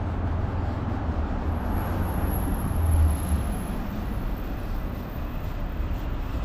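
Street traffic with a motor vehicle passing close by: a low rumble swells to a peak about three seconds in and then eases, over a steady wash of road noise.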